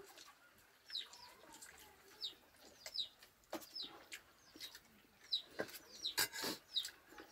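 Chickens clucking faintly, with short high downward chirps about once a second and a few soft clicks.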